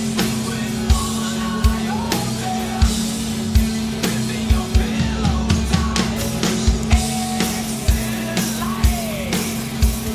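Rock music with a steady drum beat, bass and guitar, and a singing voice.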